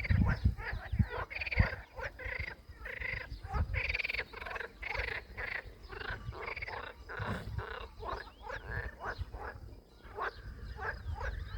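Many short animal calls repeating in quick succession, each a brief arched note, with low thumps during the first couple of seconds.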